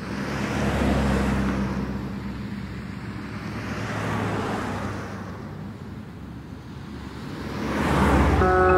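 Road traffic: cars passing one after another, each a swelling rush of tyre and engine noise over a low hum. The passes peak about a second in, around four seconds and again near the end.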